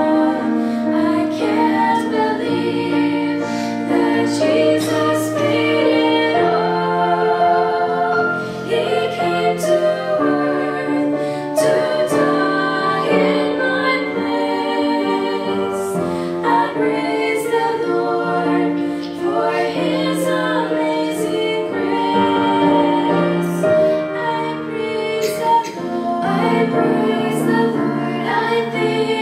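Three girls singing a Christian song about Jesus and heaven in harmony, over a musical accompaniment of steady low held notes.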